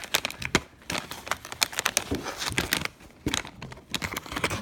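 Plastic toy packaging crinkling and tearing as it is pulled open by hand, in many quick, irregular crackles, with a short lull about three seconds in. The package is hard to open.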